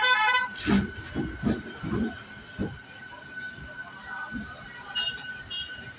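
MEMU electric train running along the track, its wheels knocking irregularly over rail joints under a steady high whine. A short horn note sounds right at the start.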